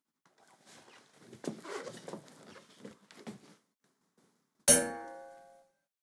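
Soft, scattered rustles and taps for a few seconds, then one sharp metallic clang that rings and fades over about a second.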